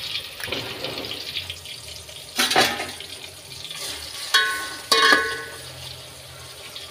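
Chopped tomatoes frying in oil in a steel pot with a soft sizzle. A steel ladle stirs them and knocks against the pot three times, each knock with a short metallic ring.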